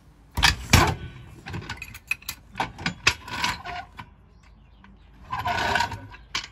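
Red hydraulic trolley jack being lowered and pulled out from under a car: a run of metallic clicks and knocks from the jack and its handle, then a short scraping rasp near the end as the jack rolls across the concrete.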